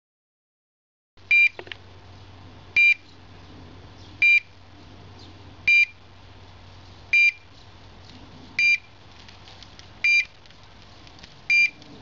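Low-frequency locator receiver beeping about once every second and a half: short high electronic beeps, eight in all, starting about a second in. Each beep marks a pulse it picks up from the pig transmitter sealed inside the water-filled steel pressure test stand, showing the transmitter is still working under pressure. A faint steady hum lies underneath.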